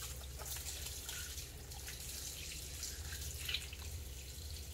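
Water running from a kitchen faucet onto a puppy being rinsed in the sink, a steady hiss with irregular splashes and drips as the wet coat is worked by hand.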